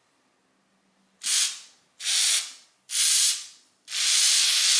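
Aerosol spray can hissing through a thin straw nozzle in four bursts, the first three short and the last one longer, as it sprays foam onto a rusted vise joint.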